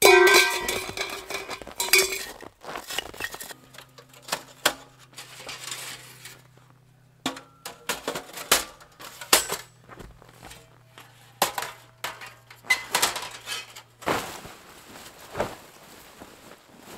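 Sheet-metal stovepipe sections of a portable wood stove clanging and ringing as they are handled and nested, followed by scattered metallic clinks and knocks as the small stove is packed away. Near the end, heavy canvas rustles as the tent is folded.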